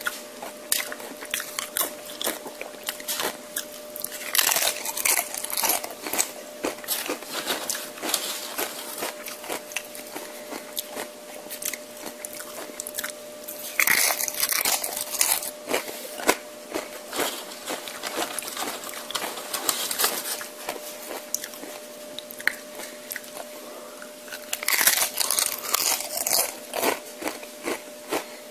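Close-miked eating: a person crunching and chewing tortilla chips, with many small crackles and three louder bouts of crunching, about 4, 14 and 25 seconds in. A faint steady hum runs underneath.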